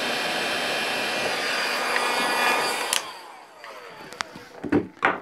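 Handheld hot-air gun blowing steadily while it dries water out of a car's rear window rubber seal. About three seconds in it is switched off and its fan winds down in a falling whine. A few short clicks and knocks of the tool being handled follow.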